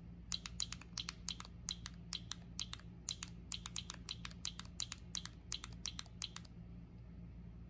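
Bandai ∞ Puchipuchi endless bubble-wrap toy being squeezed again and again: a quick run of small crisp plastic pops, about four or five a second, stopping near the end.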